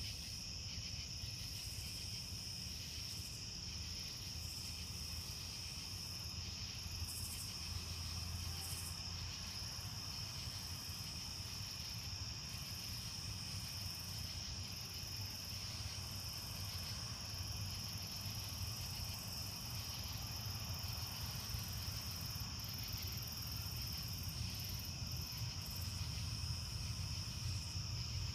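Chorus of night insects such as crickets, an unbroken high-pitched trill with a low steady hum underneath.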